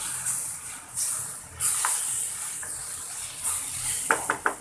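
Ash gourd bhaji sizzling in a frying pan, the hiss swelling and easing every second or so, with a quick run of about four clicks near the end.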